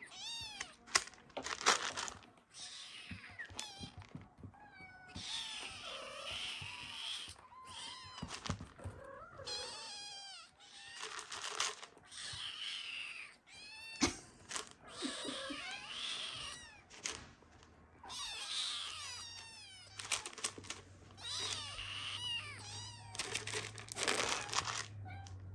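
Several kittens meowing over and over, high-pitched cries that overlap one another, begging for food.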